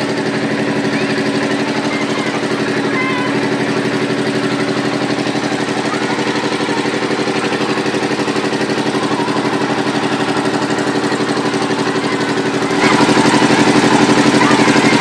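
Generator engine running steadily: an even mechanical drone with a fast, regular throb. It gets suddenly louder near the end.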